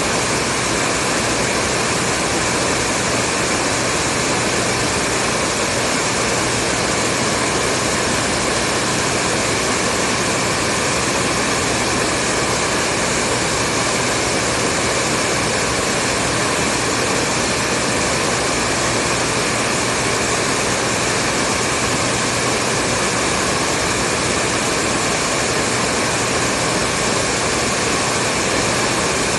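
Hair dryer running continuously: a steady, even rushing of blown air over a motor hum, with no change in pitch or level.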